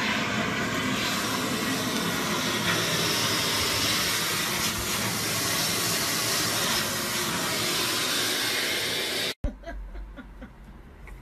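Household cleaning appliance running with a steady, loud hiss, cutting off suddenly about nine seconds in.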